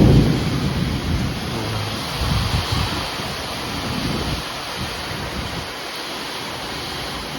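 Thunderstorm with heavy rain and strong wind gusting, buffeting the microphone in low rumbles. The rumble of a thunderclap dies away in the first second.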